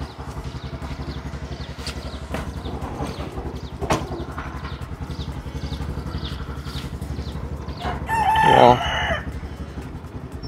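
A rooster crows once, about eight seconds in: a loud call of just over a second that falls in pitch. Underneath it a farm motor runs steadily with a low, even throb, and small birds chirp.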